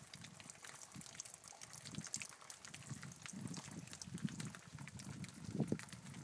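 Rain dripping and trickling, with many scattered drops ticking sharply over a faint hiss. A low rumble swells in the second half.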